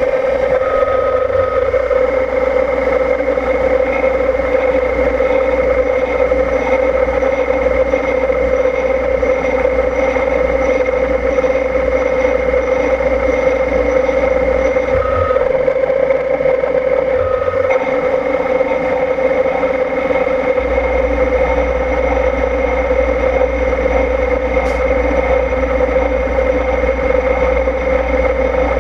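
CNC milling machine spindle running with a steady whine as a small end mill cuts spiral flutes into a tap blank turned on a rotary fourth axis. A low rumble underneath drops away for a few seconds midway and then comes back.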